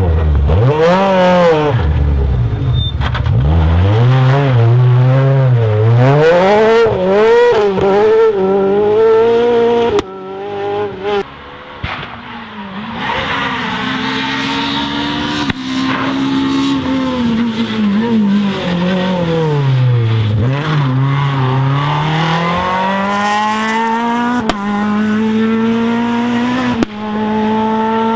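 Rally car engines at full throttle, revving up through the gears and dropping in pitch when braking and downshifting. The sound changes abruptly several times, cutting between different cars.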